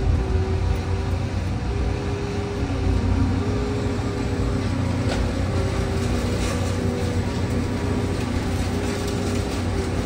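Sennebogen material handler's diesel engine and hydraulics heard from inside its cab as the boom and grab swing: a steady low drone with a humming tone that comes and goes, and a few light ticks.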